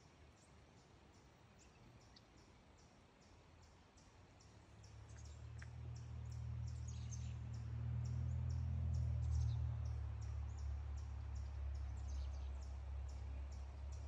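Faint woodland bird calls: a high, regular chirping about two to three times a second, with a few short descending calls around the middle. A low mechanical drone swells in about five seconds in and becomes the loudest sound.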